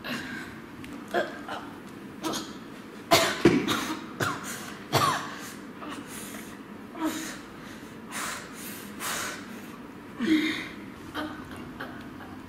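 A woman's short grunts, gasps and coughs of pain and effort during a struggle, in about ten irregular bursts, the loudest about three to five seconds in.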